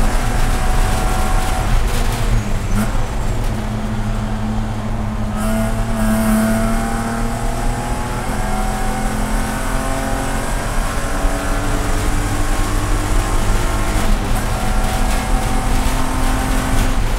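In-cabin sound of a BMW Spec E46 race car's inline-six engine pulling hard, with road and wind noise underneath. The engine note drops about three seconds in as the car slows, then climbs steadily under throttle and drops again about fourteen seconds in.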